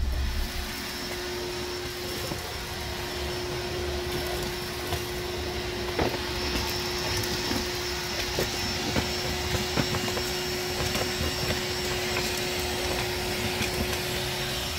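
SDS hammer drill running steadily as its bit bores through a concrete block wall, a constant motor hum with scattered sharp ticks.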